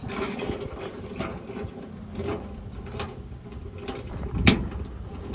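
Rapid mechanical clicking and metal clatter of hand tools and tailgate latch parts being worked on a pickup's tailgate lock, with one sharper knock about four and a half seconds in.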